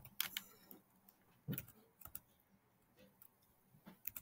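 Faint, scattered clicks of a computer mouse and keyboard, about ten short taps spread unevenly over a few seconds.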